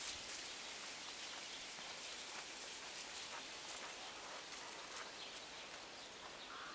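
Faint crunching and pattering of dogs' paws in snow as they move about, scattered small ticks over a steady hiss.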